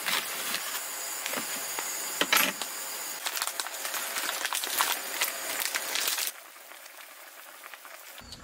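A knife cutting napa cabbage on a wooden cutting board: a few sharp knocks over a steady hiss. About six seconds in the hiss drops suddenly to a quieter one.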